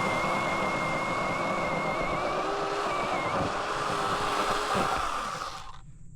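SeeSii cordless brushless electric pole saw running flat out with a steady high-pitched whine, its pitch wavering in the middle as it works through wood. It winds down and stops near the end.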